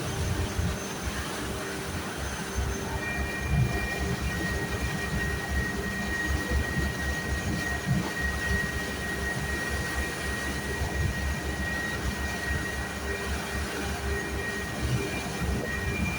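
Boat engine running steadily with a low rumble, joined about three seconds in by a high, steady whine.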